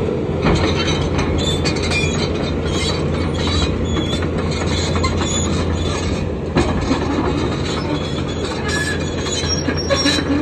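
SANY SY215 hydraulic excavator running: a steady low engine drone under scattered metallic squeaks and clanks.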